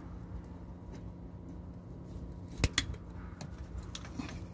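Steel pliers clicking and scraping against a truck's accelerator cable end and its lock clip, with one sharp metallic click about two and a half seconds in and a few lighter ticks after it, over a steady low hum.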